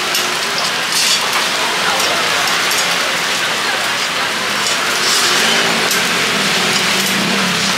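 Takoyaki sizzling and bubbling in oil in the wells of a takoyaki griddle: a steady crackling hiss. Faint voices murmur behind it.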